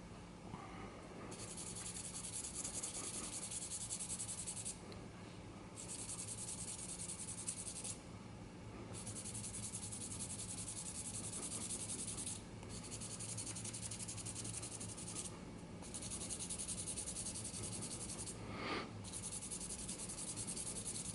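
Hand wet-sanding an oxidised vulcanite pipe stem with 600-grit paper, taking off the oxidation: a fine, quick rubbing hiss in six runs of two to three seconds, with short pauses between them.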